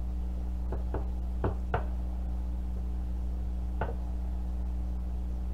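A few short knocks and taps, about five, bunched in the first two seconds with one more near four seconds, as a silicone basting brush dabs sauce onto chicken drumsticks and bumps the glass baking dish. A steady low hum runs underneath.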